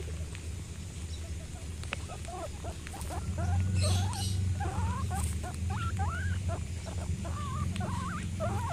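A group of guinea pigs eating pellets together, giving many short squeaks and chirps that rise and fall in pitch, busier from about two and a half seconds in, with a few brief crunches of pellets being chewed. A steady low rumble runs underneath and grows louder from about three seconds in.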